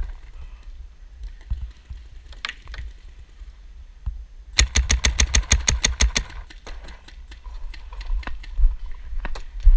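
Paintball marker firing a rapid string of about fifteen shots, roughly ten a second, for about a second and a half midway through, with scattered single pops before and after over a steady low rumble.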